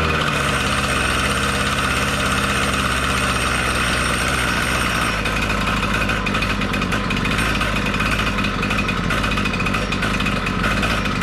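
Makita EK8100 two-stroke demolition saw, freshly rebuilt with a new piston and ring, running steadily at a fast idle. The idle speed is set too high.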